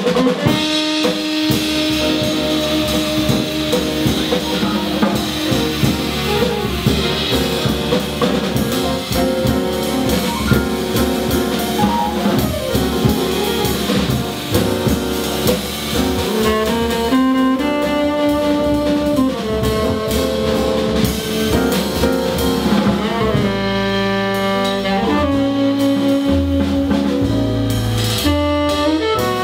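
Live small-group jazz: a tenor saxophone plays a melody over upright bass, piano and a drum kit played with sticks on cymbals.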